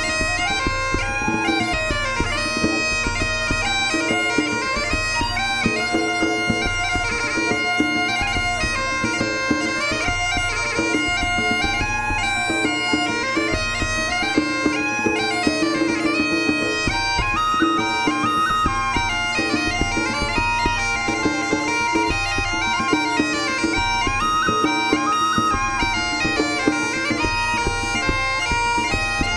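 Cornish bagpipes playing a tune over a steady, unbroken drone.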